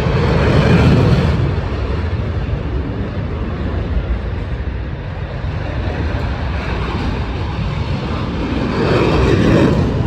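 Aircraft flying a display, a steady rushing engine noise that swells loudest about a second in and again near the end as it passes.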